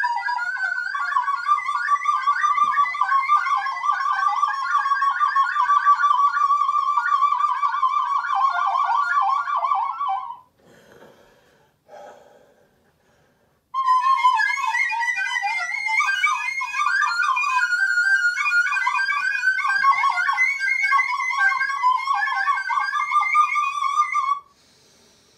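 A melody played on a small hand-held wind instrument cupped in both hands, its notes wavering in pitch. The playing breaks off about ten seconds in, leaves a few seconds of near quiet, then starts again and stops about a second before the end.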